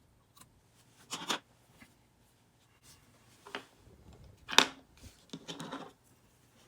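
A few short scratchy clicks and rubs, such as hands handling a laptop or desk items; the loudest comes about four and a half seconds in, with a small cluster just after.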